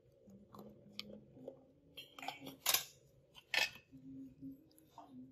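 A few short, sharp metallic clicks and snips from small metal instruments being handled, the loudest two in the middle, over a low steady hum.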